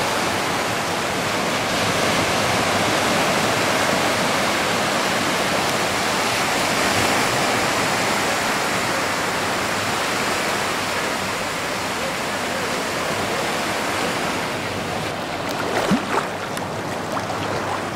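Sea surf breaking and washing onto a sandy beach: a steady rush of water, with a few knocks near the end.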